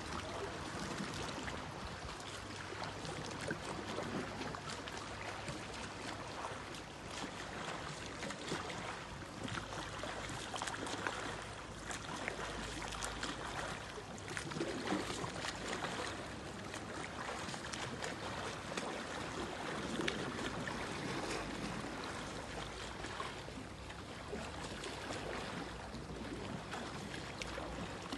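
Sea water splashing and lapping around a swimmer doing front crawl, a steady wash of water noise with a low steady hum underneath.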